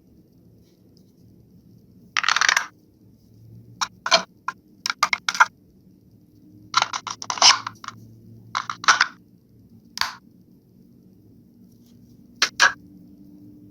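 Irregular short scrapes, clicks and knocks of small parts being handled and fitted by hand, about a dozen brief bursts with gaps between.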